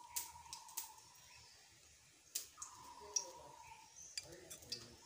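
Quiet handling sounds of hands shaping a pumpkin leaf stuffed with wet dal paste, with scattered sharp clicks. A steady high tone sounds twice in the background.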